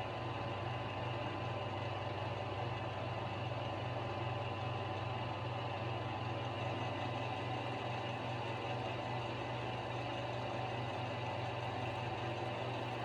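Grizzly G0776 metal lathe running steadily with a constant hum while turning down a shank for threading.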